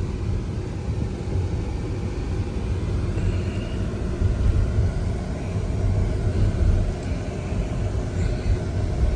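Low, steady rumble of road and tyre noise inside the cabin of a slowly moving Mercedes-Benz car.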